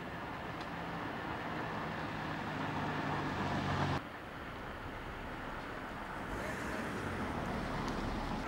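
Ambulance engine idling under a steady outdoor hum; the sound drops and changes abruptly about four seconds in.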